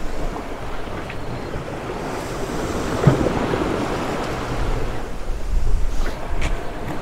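Water rushing and splashing along the hull of a Great Dane 28 sailboat running downwind through waves, with wind buffeting the microphone. A brief knock comes about three seconds in, and the rush swells near the end.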